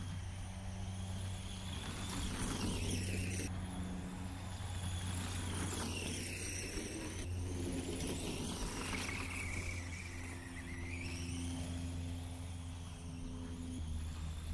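Arrma Senton 4X4 RC truck's electric motor whining, its pitch rising and falling again and again as the throttle is worked, over a steady low hum.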